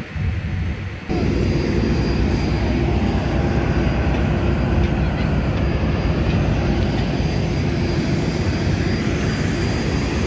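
Muffled aircraft cabin rumble for about a second, then a sudden change to loud, steady jet aircraft noise heard in the open: a rumble with a steady high whine over it.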